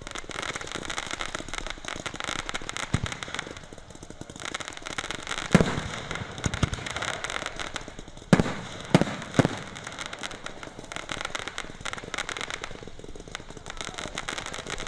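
Aerial fireworks display: about half a dozen shells bursting with sharp bangs, the loudest about five and a half and eight seconds in, over a steady crackle.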